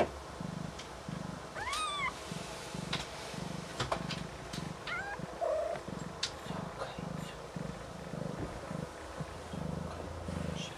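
Snowshoe Siamese cat in labor purring in a steady rhythm of about two pulses a second. A short, high, rising-then-falling mew comes about two seconds in, with a fainter one around five seconds.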